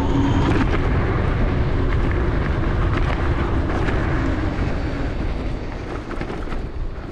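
Wind buffeting the microphone and tyres rumbling over a rough dirt towpath as a Dualtron Thunder electric scooter rides along, with small knocks from bumps in the path. The noise grows quieter in the last second or two.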